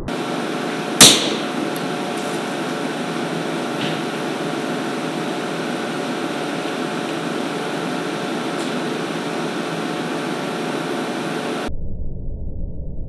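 Stud welding gun firing one weld about a second in, a single sharp crack over a steady machine hum, followed by a few faint ticks. The hum cuts off suddenly near the end.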